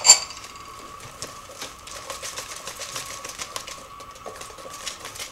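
Wire whisk beating runny cake batter in a bowl by hand: a quick, uneven run of clicks and scraping as the wires hit the bowl, over a faint steady whine. A sharp knock comes right at the start.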